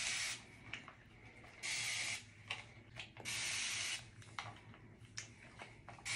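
Trigger spray bottle misting a child's hair in short hissing bursts of just under a second each: one at the start, then about two, three and a half and six seconds in, with faint clicks between.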